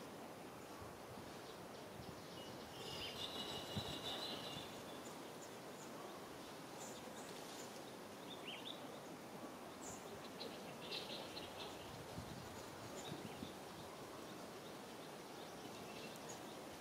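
Faint outdoor ambience with a few short high chirps, the clearest about three seconds in and a short falling one near the middle.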